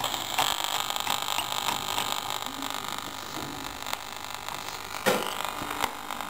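1970 Tesla Dolly 3 transistor radio hissing with static and faint, garbled snatches of broadcast as its tuning wheel is turned between stations. A knock about five seconds in.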